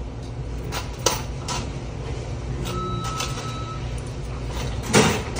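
Fast-food drive-thru work area: a steady low hum of kitchen equipment with scattered clicks and knocks, a steady electronic beep lasting about a second in the middle, and a loud knock near the end.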